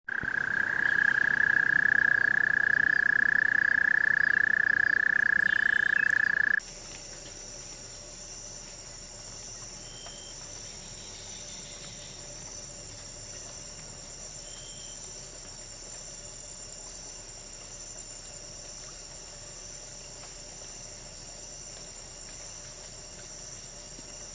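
A toad's long trill on one steady high pitch, held for about six and a half seconds and then cut off suddenly. After it, a much quieter, steady high-pitched insect chirring runs on, with a couple of faint short chirps.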